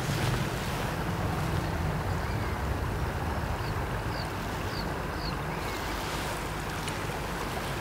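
Steady rush of river water flowing past, with wind buffeting the microphone. A few faint, short high chirps come about two a second around the middle.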